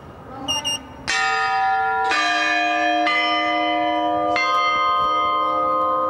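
Computer-controlled chime bells of a cathedral bell tower playing a programmed melody: four bells struck one after another about a second apart, each a different note, ringing on together. Two short high electronic beeps come just before the first strike.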